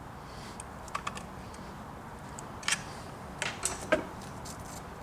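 Irregular light metallic clicks and ticks from hand work on a Sachs Dolmair chainsaw's chain and bar while the chain tension is set, with a few louder clicks around the middle.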